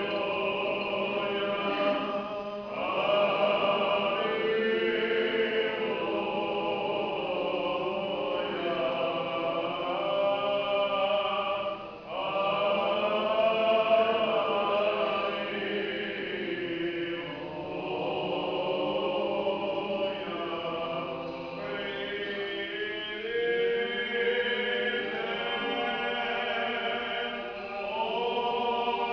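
Choir singing Orthodox liturgical chant a cappella, in long held phrases with a few short breaks between them.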